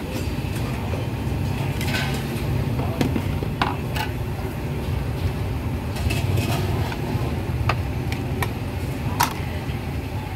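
Street-food stall ambience: a steady low rumble of traffic with scattered clinks and knocks of dishes and utensils.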